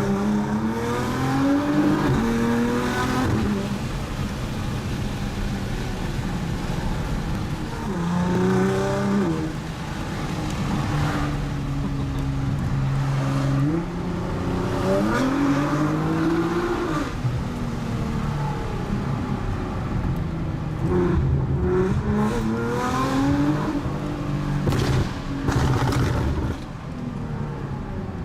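Tuned 600 hp Nissan GT-R R35 twin-turbo V6 pulling hard several times, its pitch climbing through the gears and dropping back at each shift. Sharp exhaust crackles and pops break in as the throttle lifts.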